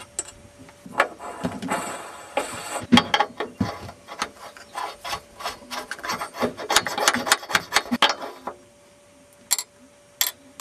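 Lawnmower flywheel's starter clutch being turned and lifted off by hand: a busy run of metal clicks, rattles and scraping that dies away a couple of seconds before the end, with one last click near the end.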